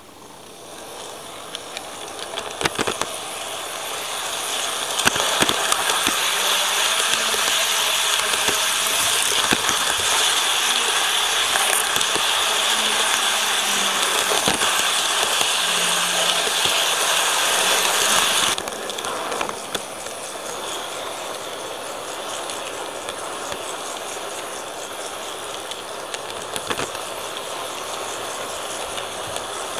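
KATO N-gauge model train running, heard from a digital camera riding on one of its wagons: a steady rolling whir of wheels on the track with occasional clicks. It builds up over the first few seconds and drops suddenly to a quieter level about two-thirds of the way through.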